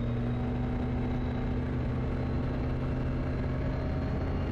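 Kitfox light aircraft engine and propeller held at run-up power, about 4,000 RPM, during the pre-takeoff run-up. The engine runs at a steady, unchanging pitch.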